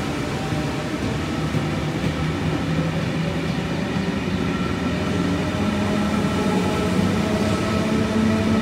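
Intercity V set double-deck electric train running past along the platform: a steady rumble of wheels and running gear, with a low hum that rises slightly in pitch over the second half.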